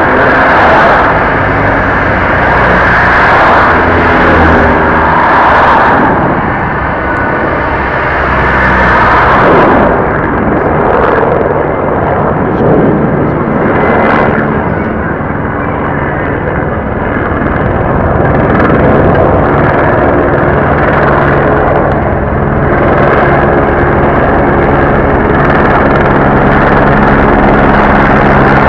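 Race-convoy motor vehicles heard from road level: cars and motorcycles running and passing close by with tyre and engine noise, joined by a steady engine hum in the second half.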